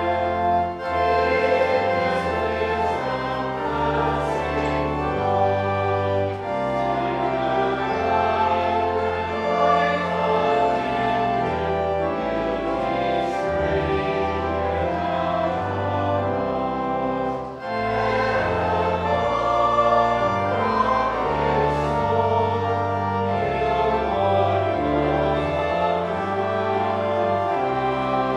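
Sacred choral music: a choir singing slow, sustained chords with instrumental accompaniment over a stepping bass line, the chords changing every second or two.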